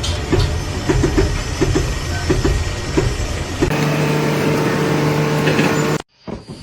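A heavy engine or machine running with a low rumble and irregular short knocks. Partway through it changes suddenly to a steady hum, which cuts off shortly before the end.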